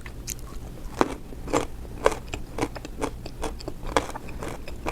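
Crunchy chewing of a mouthful of beet, heard close up as a steady run of crisp crunches, about two a second.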